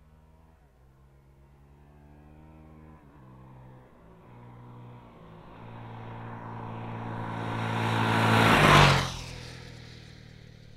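Honda CRF450RL dual-sport motorcycle's single-cylinder four-stroke engine approaching on a gravel road. Its pitch steps down twice in the first few seconds as it shifts up. It grows steadily louder to a peak as it passes near the end, then fades quickly.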